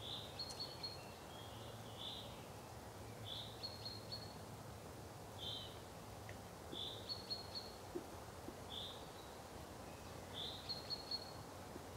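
Faint woodland birdsong: short high chirps, each with a brief trill, repeated every second or two over a steady low hum.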